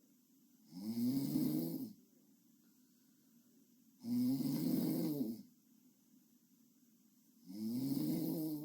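A sleeping person snoring: three loud snores with a pitched, buzzing tone, each lasting about a second and a half and coming roughly every three and a half seconds, with quiet breathing gaps between.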